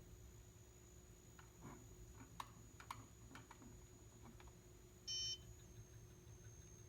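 Electric fireplace giving off a faint, steady high-pitched whine over a low hum, the whine it makes on its higher remote settings. About five seconds in a short electronic beep sounds as the setting is changed from the remote, and the whine then shifts slightly lower in pitch.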